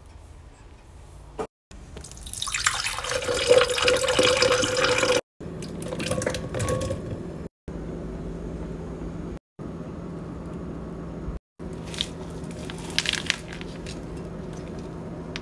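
Water running from a kitchen tap for a few seconds, then quieter stretches with a few light knocks as fruit goes into a blender jar.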